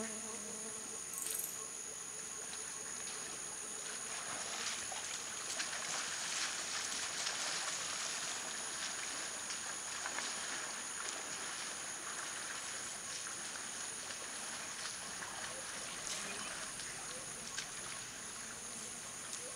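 Steady high-pitched chorus of tropical insects holding two sustained tones, with soft splashing, sloshing and patter of African forest elephants moving and drinking in shallow muddy water, busiest in the middle. A brief high chirp comes about a second in.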